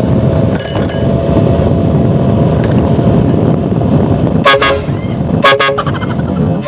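A loud bus horn fitted to a motorcycle blasts twice in short bursts, about four and a half and five and a half seconds in, over steady road traffic noise.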